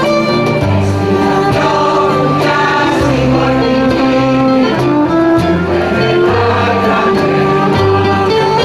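Women's choir singing a Greek folk song in unison, with bouzouki, guitar and electric keyboard accompaniment.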